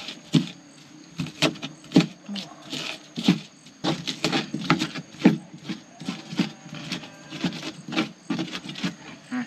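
Pestle knocking and grinding against a mortar, crushing shallots, ginger and bird's-eye chillies coarsely for sambal, in irregular knocks about two or three a second.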